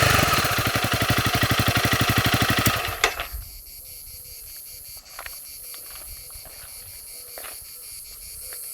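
Honda CRF300L's single-cylinder four-stroke engine idling through its stock exhaust with an even, rapid beat, then switched off about three seconds in, leaving only a few faint clicks.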